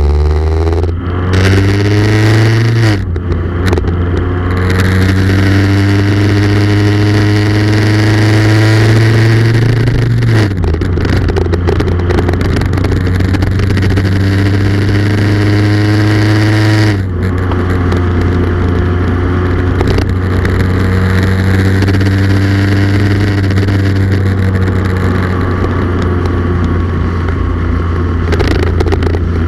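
Motorcycle engine under way, climbing slowly in pitch through each gear and dropping sharply at three up-shifts, over a steady rush of wind and road noise.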